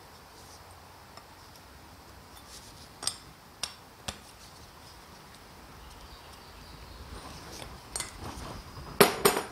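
Steel spanner clinking against a brass jet fitting as it is tightened into an SU carburettor's aluminium body: three sharp metallic clicks about three to four seconds in. A louder quick clatter of metal parts near the end.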